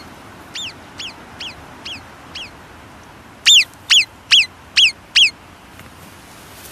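Alpine marmot alarm whistles, the warning call a marmot gives when it spots danger. A series of short, shrill whistles, each sweeping sharply up and then falling, about two a second. Several fainter ones come first, then five loud ones from about three and a half seconds in.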